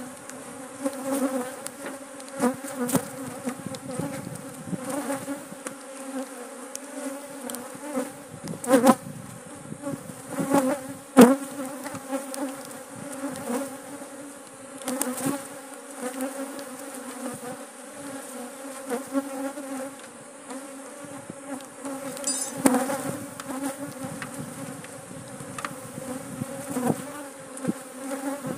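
Buzzing of a disturbed, defensive honeybee colony swarming around its opened hive, a steady low hum with bees zipping past close by. A few sharp knocks and scrapes cut through it, the loudest about nine and eleven seconds in, as the hive tool pries the frames loose.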